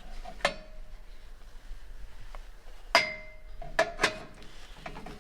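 Ramekins clinking as they are handled and set down: a few sharp knocks that ring briefly, one about half a second in and three more between three and four seconds in, with a few faint ticks near the end.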